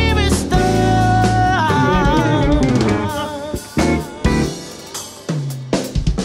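Gospel band sustaining a chord with a wavering held note, then, from about halfway, dropping out for a drum kit fill of separate snare and drum hits with cymbals.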